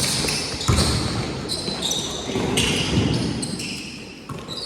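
Pickup basketball game: a ball bouncing on the court with sneakers giving many short, high squeaks on the floor.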